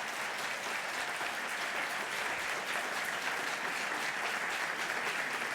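Conference audience applauding, a steady dense clapping that builds up just before and holds through, fading slightly at the end.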